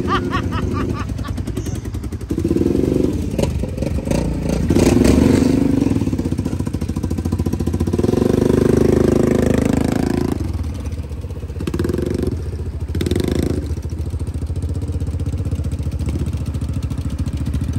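ATV and side-by-side buggy engines running with a steady low hum, swelling louder several times.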